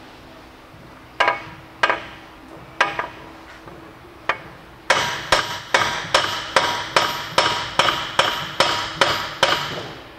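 Hammer blows on the threaded end of a Saab 9-5's CV axle, driving it out of the wheel hub: four separate strikes, then a quick run of about a dozen ringing blows, two to three a second.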